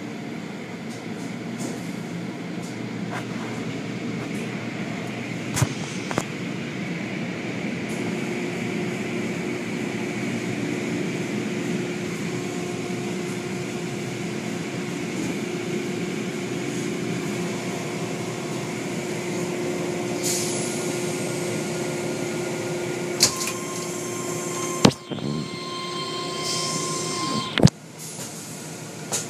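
Automatic car wash heard from inside the car: a steady hiss of water spray on the windows and body over the hum of the wash machinery. A few sharp knocks come about six seconds in and several more near the end.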